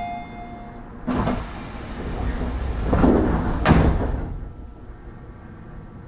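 Passenger doors of a Tobu 30000 series electric train closing. A held warning tone ends in the first second, then a hiss as the doors run shut, ending in a thud a little under four seconds in. A low steady hum from the standing train follows.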